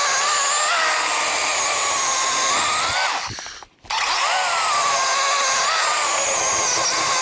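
DeWalt 20V cordless chainsaw's electric motor running with a high whine that dips in pitch again and again as the chain bites into the wood. A little after three seconds in the trigger is released and the whine winds down, then the saw starts again and keeps cutting.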